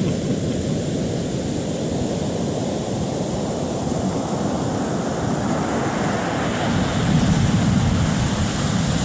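Ocean surf: a steady rush of waves that swells louder near the end as a wave breaks.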